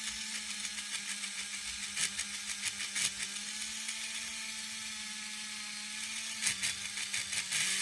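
Small electric motor and gearing of an HO-scale 0-10-0 steam locomotive running on the bench: a steady whir with a few light clicks a couple of seconds in and again near the end. The worm gear is slipping on the big drive gear, so the mechanism stalls out easily.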